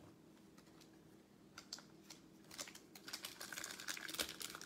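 Fingers handling trading cards and a foil card pack: quiet at first, then light, quick clicks and crinkly ticks from about a second and a half in, growing busier as the pack is worked open.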